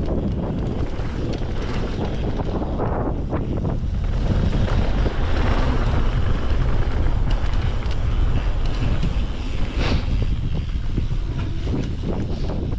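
Wind buffeting the microphone of a mountain bike riding down a dirt bike-park trail, over a heavy rumble of tyres on the ground with scattered knocks and rattles from the bike. It grows louder about four seconds in.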